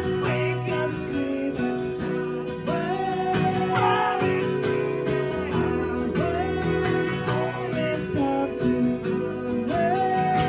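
Live band playing: strummed acoustic guitar over electric guitar, with a male voice singing the melody.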